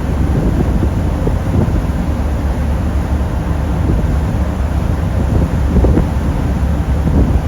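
Steady low rumble of a car ferry under way, with wind buffeting the microphone in uneven gusts.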